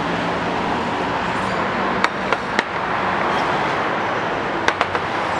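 Steady street-traffic hum with a few sharp clinks of ceramic plates and bowls being set down on a glass-topped table: three about two seconds in and two more near the end.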